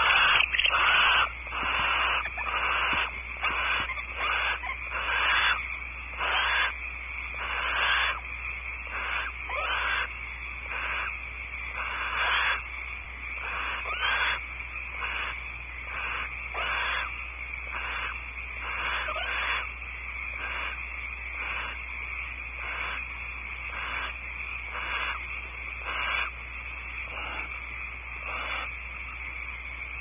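Barn owls giving a long series of harsh, hissing calls, a little more than one a second, during prey-gift courtship and mating. The calls are louder through the first dozen seconds and softer after, over a steady low hum.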